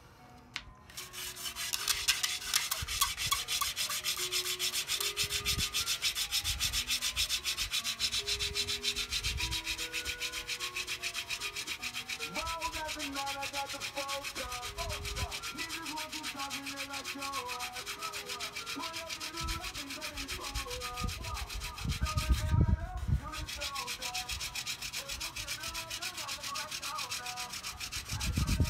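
Hand-drill friction fire-lighting: a mullein spindle spun fast back and forth between the palms, grinding in the notch of a wooden hearth board. It makes a rapid, steady rasping rub that starts about a second in, with a brief break and a couple of low knocks near the end as the hands shift on the spindle.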